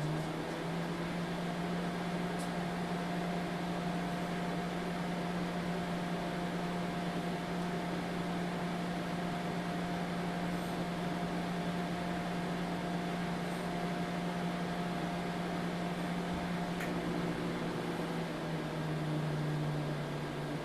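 Microwave oven running with a steady electrical hum. About seventeen seconds in, the tone of the hum shifts.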